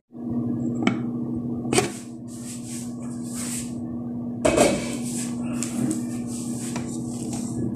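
Stainless steel pot and utensils clanking and knocking while a meal is dished up: a handful of sharp clanks, the loudest about four and a half seconds in, with some scraping between them over a steady hum.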